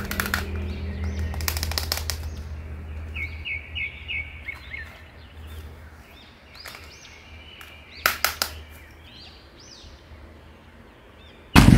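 Hard plastic action figure being handled, its limbs giving sharp clicks and knocks now and then, over a low steady hum that fades away about halfway through. A few short chirps come in quick succession near the middle, and loud music cuts in abruptly at the very end.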